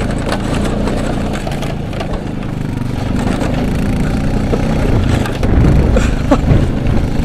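A small off-road vehicle engine (dirt bike or ATV) running steadily, getting louder about five seconds in.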